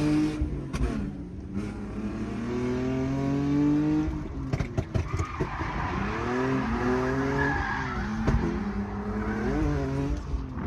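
Drift car's engine revving up and down several times as it is driven through a drift, with tyres squealing on the track in the middle stretch.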